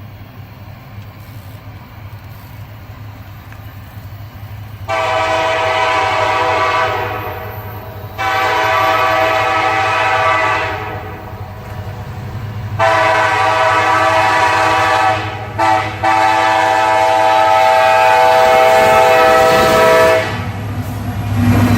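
Locomotive air horn sounding a chord in a series of blasts, mostly long with one short one before the last long blast, the grade-crossing warning signal. Under it the train's steady low rumble grows louder near the end as it reaches the crossing.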